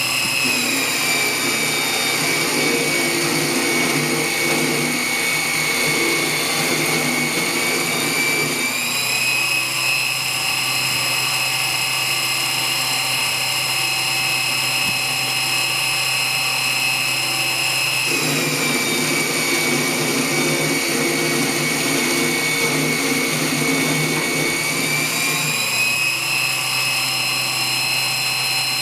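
A 7x14 benchtop mini lathe, converted to CNC with stepper motors, running with a steady high-pitched whine. The whine drops in pitch twice for about eight seconds at a time, and each time a rougher, lower rasp comes in, then the whine rises back.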